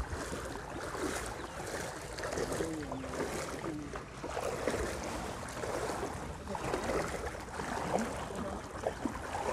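Legs wading through shin-deep floodwater, the water sloshing and swishing with each step, with wind rumbling on the microphone.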